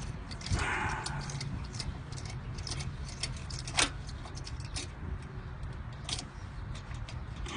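Scattered light metallic clicks and taps from brake pads and tools being handled at a car's front brake caliper, with a short scrape about half a second in and one sharper click near the middle.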